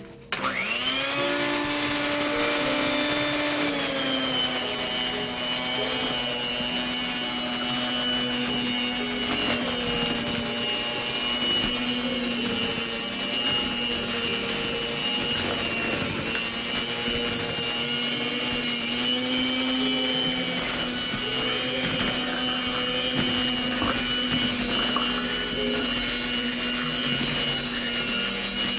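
Electric hand mixer switching on about half a second in and quickly spinning up, then running steadily as it beats cake batter. Its whine drops a little in pitch after a few seconds.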